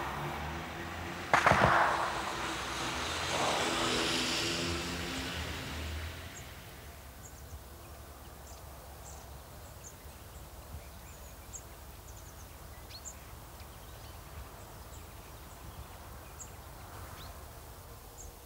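A vehicle whooshes past, coming in suddenly over a few steady low tones and fading out about six seconds in. Then comes faint outdoor quiet with a few short high chirps.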